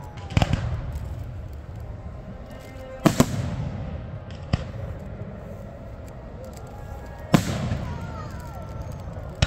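Aerial firework shells bursting overhead: a series of sharp bangs, some in close pairs, each followed by a low rumbling echo.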